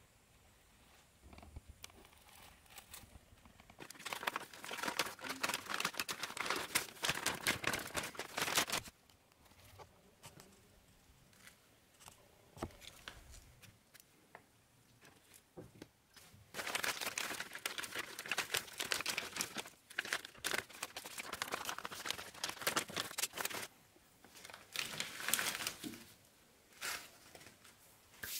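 Thin plastic wrapping crinkling as it is handled and pulled open around ball screws, in three spells with quiet gaps between them.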